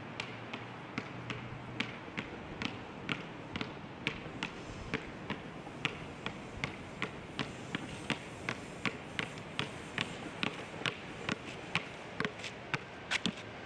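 A basketball being dribbled, bouncing steadily about twice a second and quickening near the end, over steady background noise.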